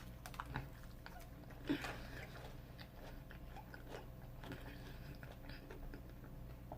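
A person chewing and biting crunchy Flamin' Hot Cheeto-breaded fried giant shrimp, faint crunches with one sharper bite a little under two seconds in.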